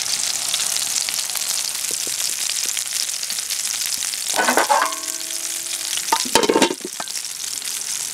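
Tilapia pieces sizzling in hot oil in a metal pan, a steady high hiss. About four and a half and six seconds in come two loud metallic clanks of the pans being handled, the first leaving a short ringing tone.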